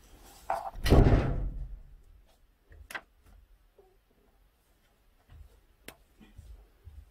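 Plastic sprue handled and cut with sprue nippers: a heavy thump about a second in, then a few sharp snipping clicks as parts are cut from the runner.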